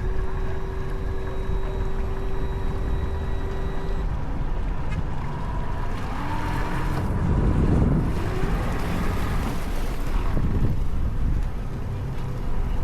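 Wind rumbling on the microphone beside the water. A steady motor hum runs under it for the first few seconds, and a louder rush of noise swells about halfway through.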